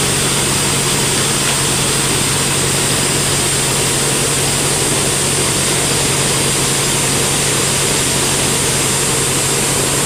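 Band sawmill running steadily with the blade not in the cut: a constant low hum with a high hiss.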